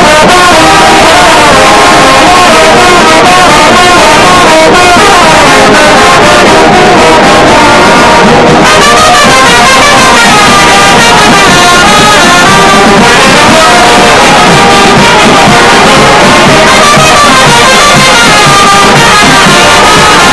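Kimbanguist brass band playing loudly, with many brass instruments sounding together.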